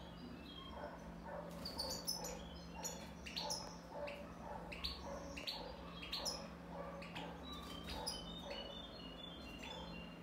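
Caged European goldfinch of the Balkan race (Carduelis carduelis balcanica) singing: a busy twittering run of quick chirps and short whistled notes, over a steady low hum.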